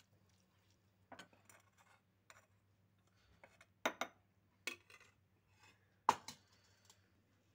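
A metal spoon scraping and clinking against a metal pan and a glass jar as sticky rose-petal preserve is spooned into the jar: a few short, sharp clinks, the loudest about four and six seconds in.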